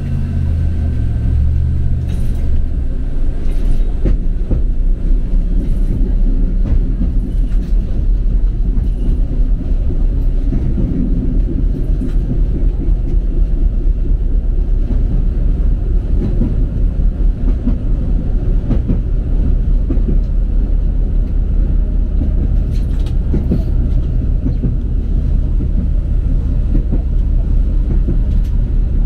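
Tram running along its track, heard from inside the passenger car: a steady low rumble of wheels on rails with a few sharp clicks. A faint whine sits over the rumble in the first couple of seconds.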